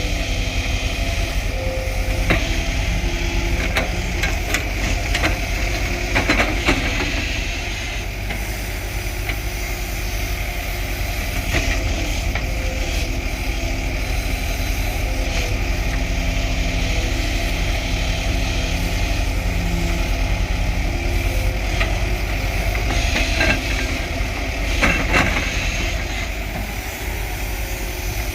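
Diesel engine of heavy earthmoving machinery running steadily, with a few sharp knocks scattered through it.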